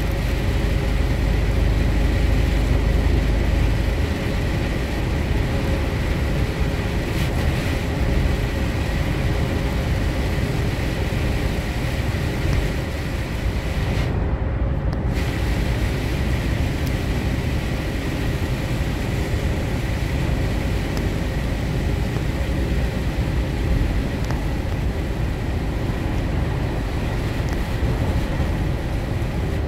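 Steady cabin noise of a vehicle driving on a wet motorway: low engine and tyre rumble with tyre hiss, and a faint steady whine.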